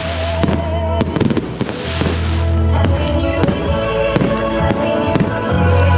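Fireworks going off in quick, irregular succession, several sharp bangs and crackles a second, over music with a steady bass line.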